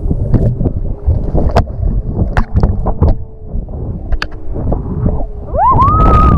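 Wind buffeting an action camera's microphone with many knocks and bumps as a parasail lifts off over the sea, under a faint steady engine tone from the tow boat. Near the end a high tone rises and holds briefly.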